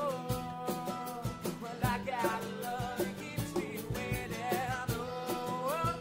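Acoustic rock band playing, with a guitar over a steady drum beat and a singing voice.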